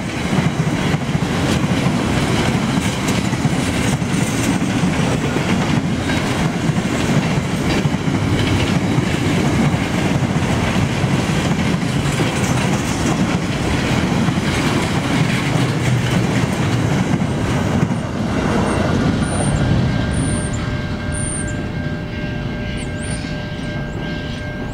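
Freight train of flat wagons rolling past: a steady rumble with wheel clatter over the rails. About 18 seconds in the last wagon passes and the noise drops away to a fainter, fading rumble with a thin steady whine.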